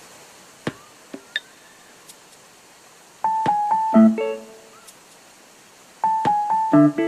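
Electric-piano background music from a video-game soundtrack: two short phrases of notes about three seconds apart, over a faint steady hiss. A few light clicks come in the first second and a half.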